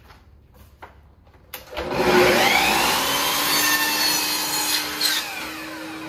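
Festool Kapex miter saw starting up about a second and a half in and cutting through a length of crown molding, the blade whine rising as it comes up to speed, after a few light knocks of the molding being set against the saw fence.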